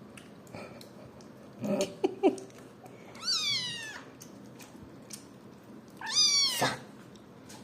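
Caracal kitten calling: two high mews that fall in pitch, each under a second long, about three seconds apart. Earlier there is a brief lower sound and a few short clicks.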